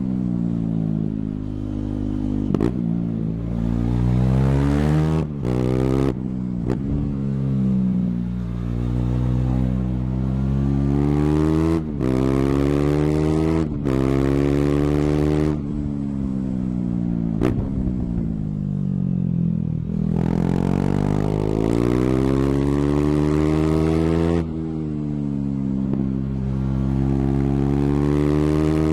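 KTM 390's single-cylinder engine running loud through an exhaust with the dB killer removed, its revs repeatedly climbing and falling while the bike is ridden. The sound cuts out abruptly for a moment several times.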